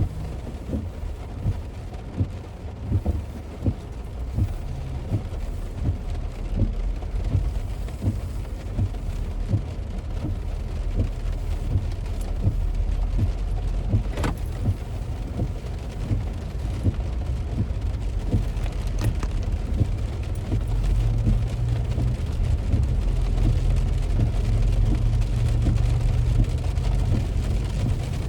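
Heavy rain striking a moving car, heard from inside, with many separate drop hits over the low rumble of the car on the road; the rumble grows louder about two-thirds of the way through.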